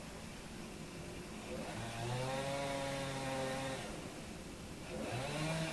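Chainsaw revving up, running at high speed for about two seconds and dropping back, then revving up again near the end.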